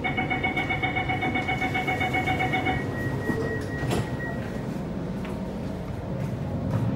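Door-closing warning beeps of a C751C metro train: a rapid, evenly pulsed electronic beeping for about three seconds, then a thump as the doors shut about four seconds in, followed by the low rumble of the train pulling away.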